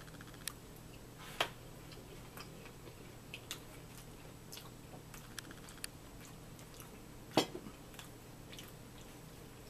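Quiet eating sounds at a table: chewing and small scattered clicks of a fork against a plate, with a louder knock about a second in and another about seven seconds in.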